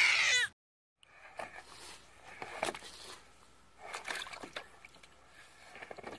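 A baby's high-pitched cry as its feet touch the water of a wading pool, falling in pitch and cut off about half a second in. Then faint splashing and a few soft knocks in a plastic wading pool.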